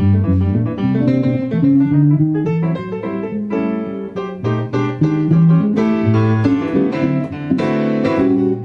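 A blues piece played on piano and guitar, the piano leading with a steady run of notes and chords.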